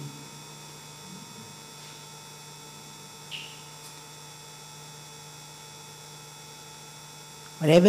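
Pause with only a steady electrical mains hum of several fixed tones over faint room tone, and one brief faint chirp about three seconds in.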